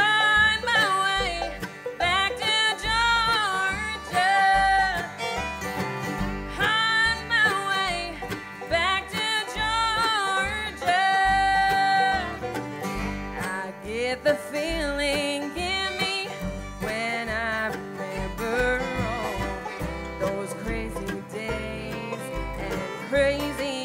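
Acoustic bluegrass band playing live, with banjo, mandolin, acoustic guitars, fiddle and upright bass. A lead line of sliding and held notes runs over a steady upright-bass beat.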